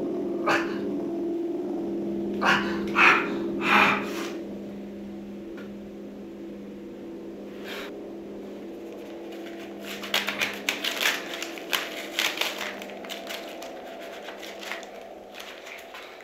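A low, steady droning tone, with sharp rasping bursts in the first four seconds. About ten seconds in comes a quick run of crackling, tearing sounds that fades over the next few seconds.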